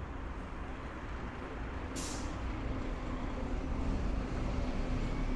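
Street traffic: a large vehicle's engine running low and growing louder, with a short hiss about two seconds in.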